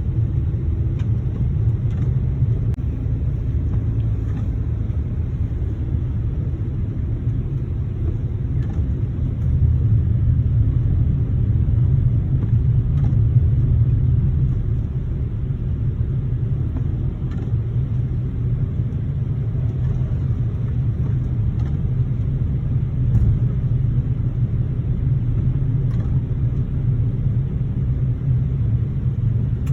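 Car driving, a steady low rumble of engine and tyres on the road.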